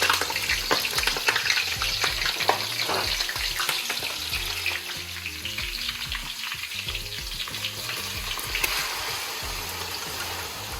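Chopped onions sizzling as they fry in hot palm oil in a wok, with scattered clicks of a utensil stirring them. The sizzle eases a little in the second half.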